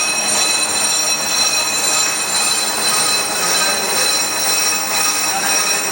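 Brake disc rotor being skimmed on a manual lathe: a steady metallic scraping with a high ringing squeal from the cutting tool against the spinning disc.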